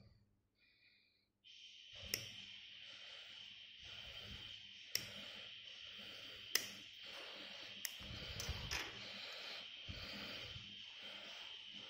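Hobby side cutters snipping black plastic Mini 4WD wheels off their sprue: several sharp clicks a second or two apart, over a steady hiss that comes in early.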